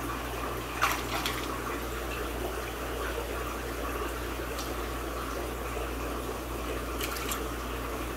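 Steady sound of running water with a low steady hum underneath. A few brief splashes of water drip off a hand and a fish, about a second in and again near seven seconds.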